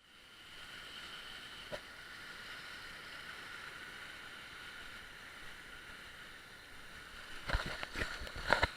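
Steady rush of the Kinchkha waterfall's falling water heard at a distance. From about seven and a half seconds in, irregular loud thumps break over it.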